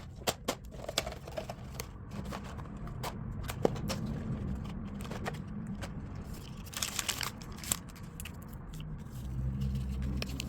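Packaging being torn open and handled while a drink is mixed: rustling, scraping and tearing, with many small clicks and taps and a longer rustle about two-thirds of the way through.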